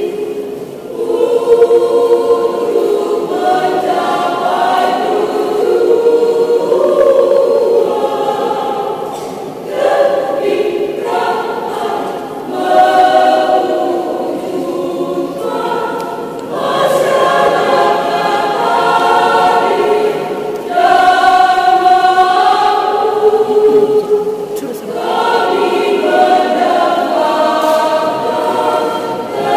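Women's choir singing in sustained phrases, with brief pauses between phrases.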